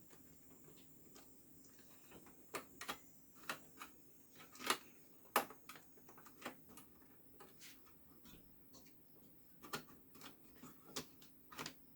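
Irregular light clicks and taps of the all-in-one PC's plastic back cover and stand hardware being handled and worked at, as the cover is still held in place.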